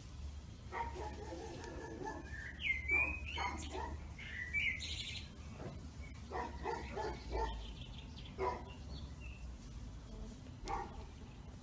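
Hairless stray cat giving a series of short meows and chirrups as it rubs against a man's face, with birds chirping in the background.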